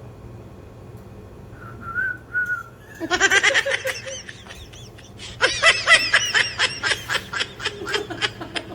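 Two short whistled notes, then two bursts of hearty laughter a couple of seconds apart, the second one longer.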